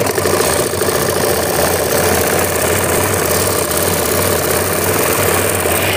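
Old sewing machine running fast, its needle stitching steadily through sequinned fabric with a rapid, even mechanical rattle and a low hum underneath.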